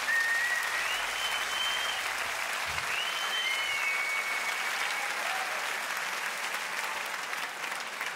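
Concert crowd applauding and cheering, with a few high whistles through the first half, the applause slowly dying away.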